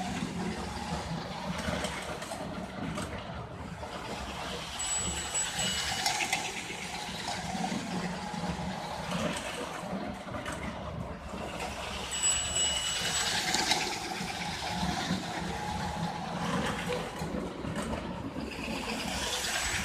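American Flyer 312 S-gauge steam locomotive running on its track: the motor and wheels make a steady running noise that swells and fades every few seconds, with brief high thin tones now and then. Its smoke unit's choo-choo chuff is weak.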